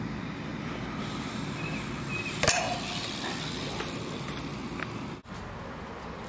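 Steady low background rumble, with one sharp click about two and a half seconds in.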